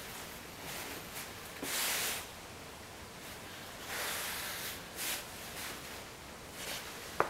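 Upholstery fabric rustling and swishing in several soft strokes as gloved hands pull and smooth it over a foam seat cushion. A single sharp click comes near the end.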